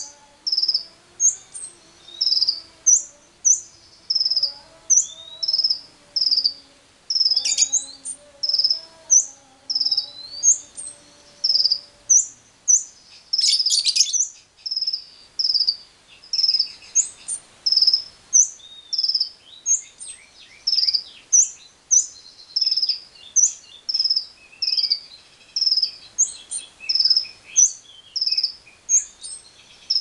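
Birds chirping: a high, short chirp repeats about twice a second, steady throughout, with a brief dense flurry of calls about 14 seconds in and a scatter of other, falling calls over the second half.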